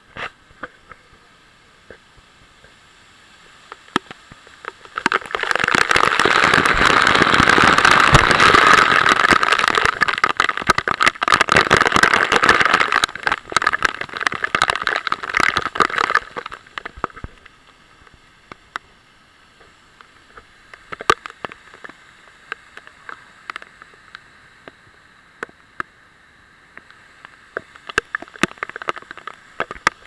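Falling water of a mountain waterfall pouring onto a person and the camera under it. From about five seconds in to about sixteen seconds in it is a loud, dense rush of splashing. Before and after that it is a fainter hiss with scattered sharp ticks.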